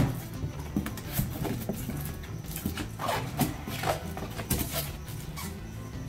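Packing tape ripped off a cardboard shipping box with a sharp tear at the start, then cardboard flaps and a plastic-wrapped styrofoam insulating lid rustling and scraping as the box is opened.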